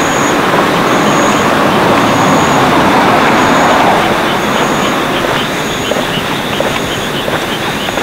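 A vehicle passing close by: a rushing noise that swells to its loudest about three to four seconds in, then fades away.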